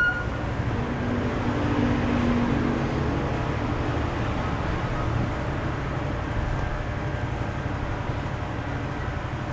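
Corded electric hair clipper running with a steady low buzz as it cuts short hair close at the side and back of the head for a fade.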